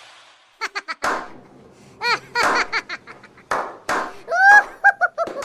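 A person laughing in short bursts after a few quick clicks, with the laughter strongest near the end.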